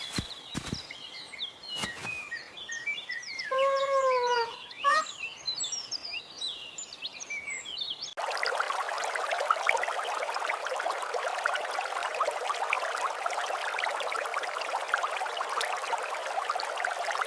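Birds chirping, with a few sharp clicks and one falling pitched call, then about eight seconds in a steady crackling hiss starts abruptly and runs on.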